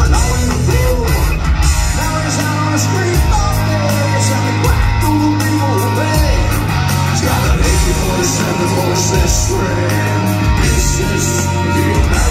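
Live hard rock band playing: a male lead vocal singing over distorted electric guitars, bass and drums.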